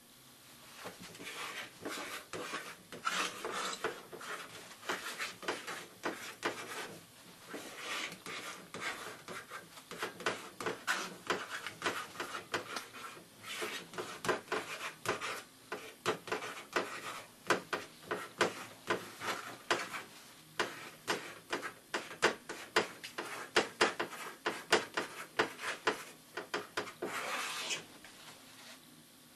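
Chalk writing on a blackboard: runs of quick scratching, tapping strokes with short pauses between them, stopping shortly before the end.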